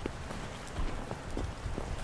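Footsteps of several people crunching through snow and dry brush: irregular soft crunches and small crackles of twigs, over a low rumble.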